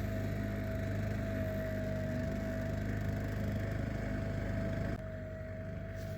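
Yamaha 5-horsepower outboard motor running steadily, a constant hum with a high whine over it. About five seconds in it drops a little quieter and changes character.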